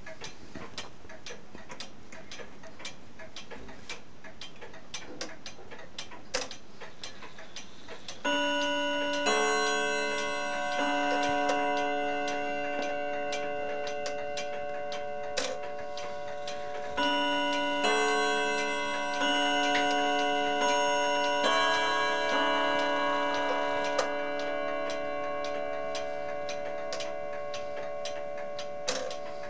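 A 1938 Vedette pendulum wall clock ticking steadily. About eight seconds in, its chime starts striking a melody of ringing tones that overlap and hang on, and it runs for some twenty seconds before the ticking goes on alone near the end.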